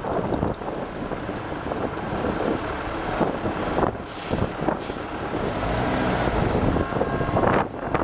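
Lorry engine running as the truck crawls past through snow, getting louder as it draws close, with wind on the microphone. A brief high hiss comes about four seconds in.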